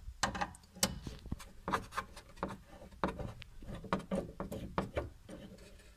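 Screwdriver turning the adjustment screw on a sliding wardrobe door's bottom roller, giving a string of small irregular clicks and scrapes of metal on wood.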